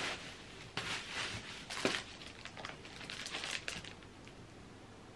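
Bubble wrap rustling and crinkling in short handfuls as it is pulled aside in a cardboard box, dying away about four seconds in.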